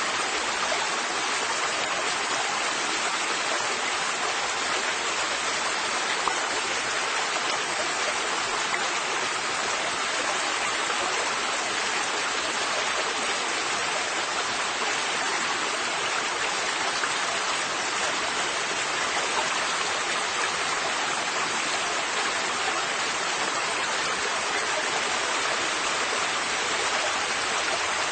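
River water flowing steadily, a continuous even rush and babble of current without pauses or changes.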